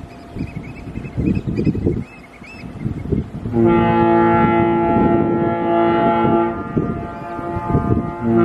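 The MV Coho's Cunningham ship's whistle sounding one long, steady, deep blast of about three seconds, starting a little before halfway; a second blast begins right at the end.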